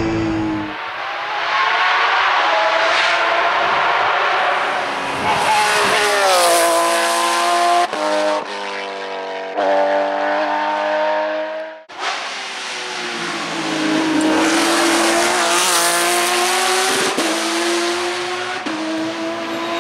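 Porsche 997 GT+ rally car's flat-six engine revving hard through the gears, heard from the roadside. The pitch climbs and drops back with each upshift. The sound breaks off briefly about twelve seconds in, then picks up again, climbing and shifting once more.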